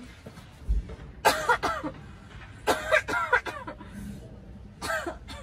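A woman coughing into her hands in three voiced bouts about a second and a half apart, the first two the loudest, with a short low thump just before the first.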